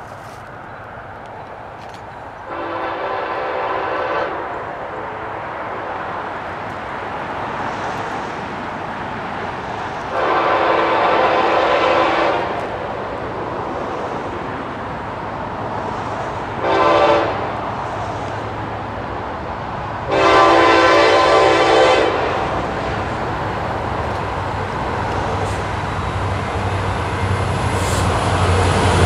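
Norfolk Southern freight locomotive's air horn sounding the grade-crossing signal, long, long, short, long, over the rising rumble of the approaching double-stack container train.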